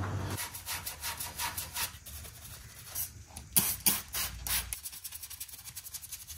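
Stiff detailing brush scrubbing a plastic engine cover in quick back-and-forth strokes, several a second, a scratchy rubbing, with a few harder strokes a little past the middle.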